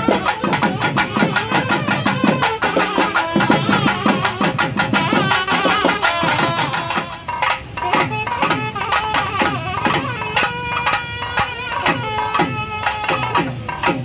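Traditional temple festival music: long wind instruments playing a held, wavering melody over fast, dense drumming.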